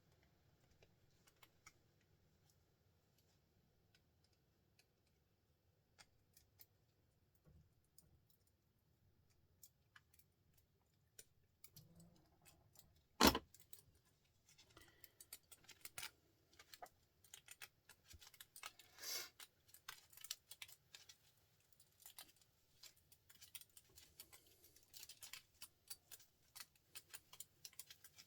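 Hand tools clicking, snipping and scraping on small metal parts as a printer motor is taken apart for its copper. A few faint clicks at first, one sharp loud snap about halfway, then a busy run of small metallic clicks and rattles with a brief scrape.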